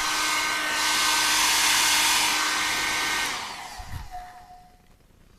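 Visiq CHD415 1200 W hair dryer running on its higher, hotter and faster setting: a steady blowing hiss with a faint hum. It stops a little over three seconds in and winds down to quiet.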